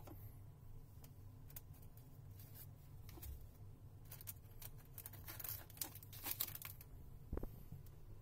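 Paper and foil tea and coffee sachets crinkling and rustling as a hand sorts through them, in a cluster of short crinkles a few seconds in, followed by a soft knock near the end.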